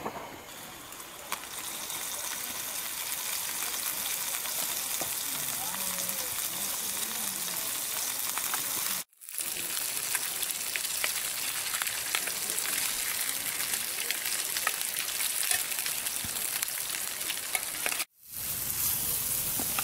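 Food frying in oil in a small pan on a portable gas canister stove, a steady sizzling crackle, stirred now and then with a utensil. The sound drops out briefly twice.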